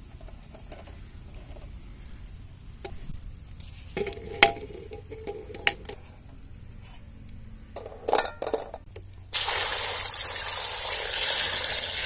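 Raw eggs knocking against each other and against a steel bowl as they are moved by hand: a few sharp clinks, some with a short metallic ring. About nine seconds in, water starts pouring steadily into the metal pot of eggs.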